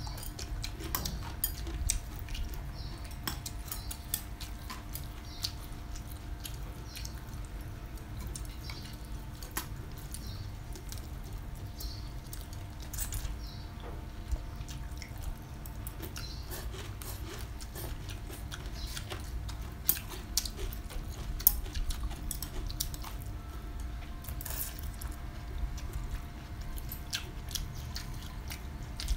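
Eating sounds from close by: rice noodles slurped and chewed, with chopsticks clicking against ceramic bowls now and then.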